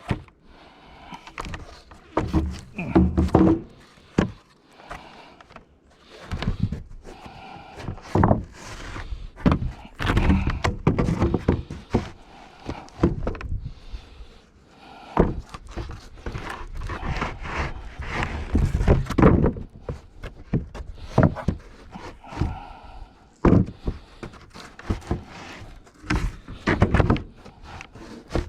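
Irregular wooden thunks and knocks, boards and sawn pieces being handled and set down.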